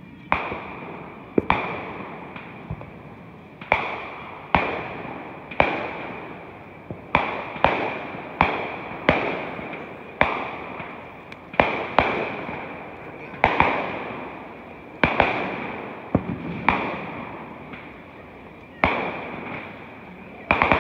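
Aerial fireworks bursting out of sight: a string of sharp booms at irregular spacing, roughly one a second, each trailing off in a long rolling echo.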